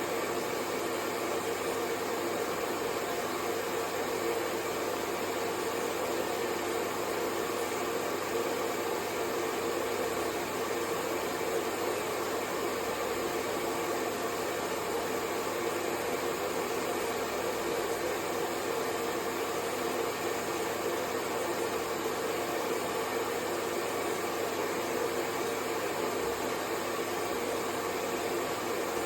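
Hair dryer running steadily: an even rush of blown air with a faint hum of the motor, level and unchanging throughout.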